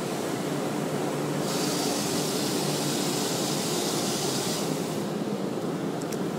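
Automatic car wash heard from inside the car: a steady rumble of the wash machinery and water running over the windshield, with a sharper hiss of spray for about three seconds in the middle.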